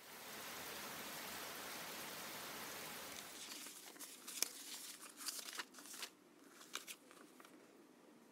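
A steady hiss of rain, which stops about three and a half seconds in. Then paper envelopes and glossy brochures are shuffled by hand, with several sharp crinkles and rustles.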